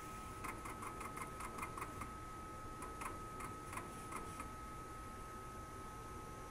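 Graphtec CE6000-60 vinyl cutter cutting laminated vinyl: a quick run of irregular clicks and ticks, a few a second, as the cutting head moves, over a steady high hum. The clicking stops about four and a half seconds in, leaving the hum.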